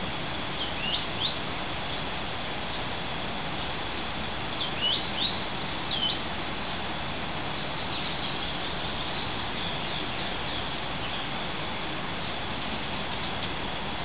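Rainforest wildlife: a steady high insect chorus with birds calling in short sweeping whistles, a few about a second in and a cluster around five to six seconds in, over a constant background hiss.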